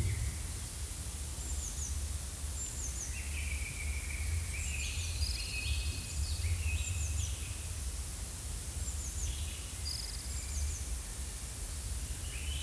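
Forest ambience: several small birds chirping and trilling in short repeated phrases, over a steady low rumble.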